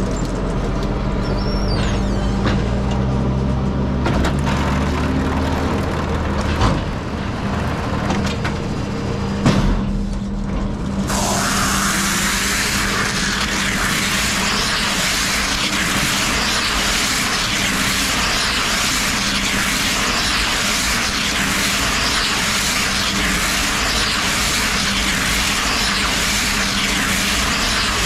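Silage round baler-wrapper running: a low machine hum with two knocks as the formed bale is handled. About eleven seconds in, a steady loud hiss sets in and continues while the wrapper winds stretch film around the bale.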